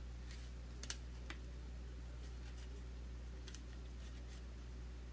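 Faint, sparse clicks of the KAIWEETS KM601 multimeter's plastic housing and circuit board being handled and eased apart, the sharpest pair of clicks about a second in, over a steady low hum.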